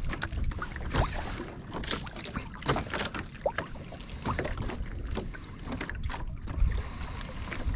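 Water lapping against the hull of a fishing kayak, with irregular small knocks and clicks and a low rumble of wind on the microphone.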